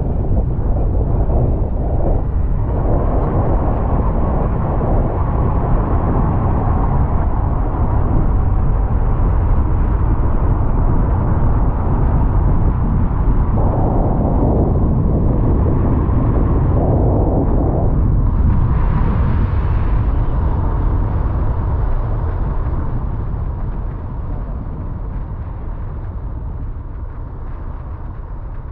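Steady, loud low rumble of noise with no clear tone, fading over the last few seconds.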